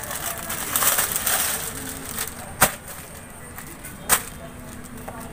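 Clear plastic packaging crinkling and rustling as a bagged dress is handled, with two sharp clicks about one and a half seconds apart.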